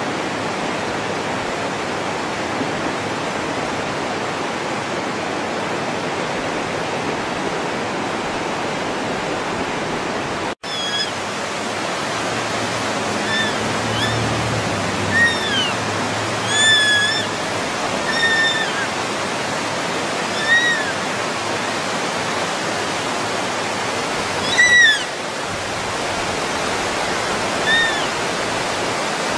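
A steady rushing hiss, cut off for an instant about ten seconds in. From then on, about ten short high-pitched animal calls sound over it, a second to a few seconds apart, each rising and then falling in pitch.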